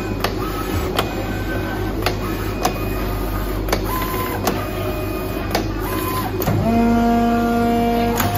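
IECHO PK0705 Plus flatbed cutting plotter V-grooving and cutting 4 mm greyboard: the cutting head travels with short motor whines and sharp clicks every half second to a second, over a steady low hum. About six and a half seconds in, a louder steady whine with several tones starts and holds.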